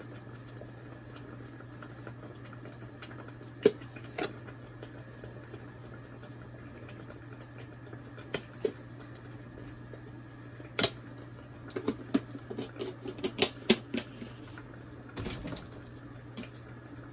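Scattered clicks and light knocks of a plastic scoop against a plastic sugar jar and the rim of an aluminium pot as sugar is spooned into carrot kheer, with a run of quick taps near the end, over a steady low hum.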